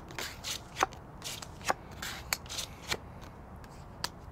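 Playing cards being dealt onto a wooden tabletop: short sliding swishes and about half a dozen sharp snaps as the cards land.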